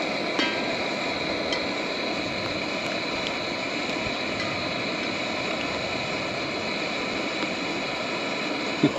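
Rain and hail falling steadily: an even, unbroken hiss with a few sharp ticks of hailstones striking.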